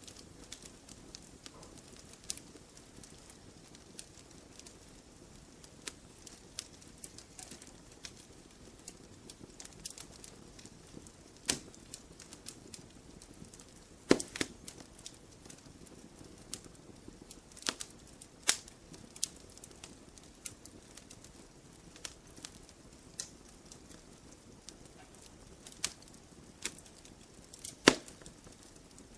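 Campfire logs burning and crackling: irregular sharp snaps and pops over a soft, steady background of burning wood. The loudest pops come about halfway through and near the end.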